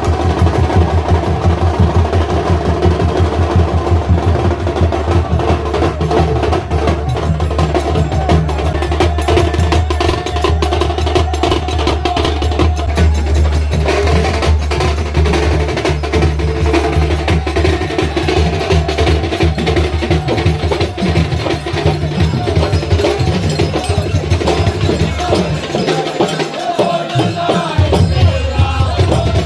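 Music with fast, dense percussion over a heavy steady bass; the bass drops out briefly near the end, then returns.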